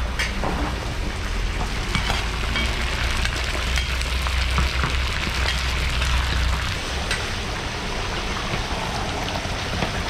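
Chunks of meat frying in hot oil with onions in a large kazan, the first frying stage of plov: a steady sizzle with scattered crackles and pops. A low rumble underneath stops about seven seconds in.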